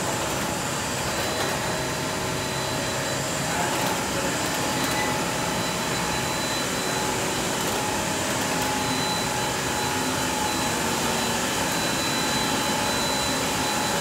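Instant-noodle production-line machinery running: conveyors and dough-sheeting rollers making a steady whirring noise with a thin, high, constant whine over it.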